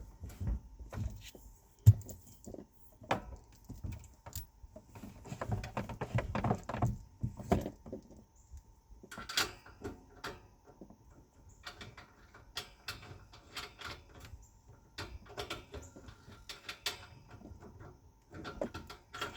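Handling noises from connecting a propane hose to a catalytic heater: irregular clicks, taps and knocks of fittings and parts, with one sharp knock about two seconds in.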